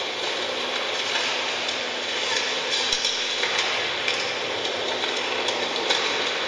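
Live electronic music from a laptop and mixer: a dense, steady hiss-and-crackle texture dotted with many small clicks.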